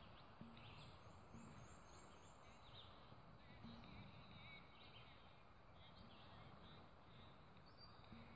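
Near silence: faint woodland ambience with a few soft, high bird chirps.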